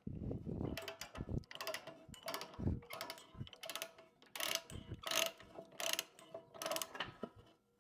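Chain binder being cranked tight, its mechanism clicking in a steady rhythm of about one stroke every 0.7 s. The chain is under heavy load, pulling a bent steel grapple plate back into shape.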